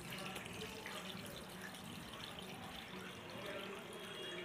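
Sugar water poured in a steady trickle from a steel pot through a small plastic strainer onto a plate of wheat flour.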